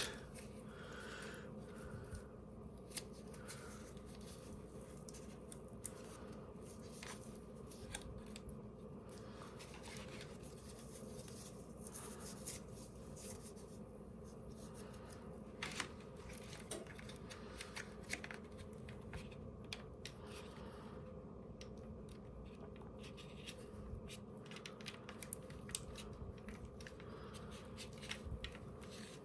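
Faint handling noises from working on a dishwasher's control panel: scattered light clicks, scratching and rubbing of parts being moved, over a steady low hum.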